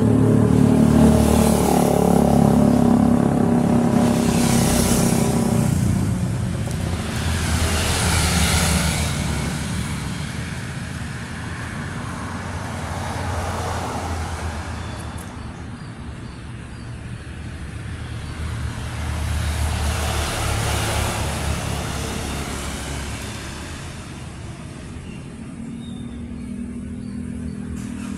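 Street traffic: motor vehicles passing one after another, each pass swelling and fading over a few seconds, with an engine running close by for the first few seconds and again near the end.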